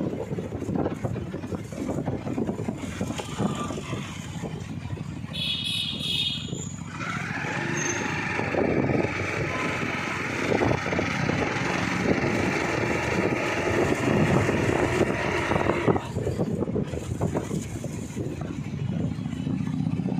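Vehicle and road noise while moving along a city street, with a low steady rumble throughout. About six seconds in there is a brief high-pitched tone, then a steadier higher-pitched sound that lasts about nine seconds before stopping.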